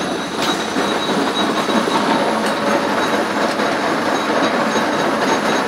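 Formost Uniplast 160 C processing line running, its long perforated roller turning in a stainless trough: a loud, steady mechanical rattle with a faint high-pitched whine.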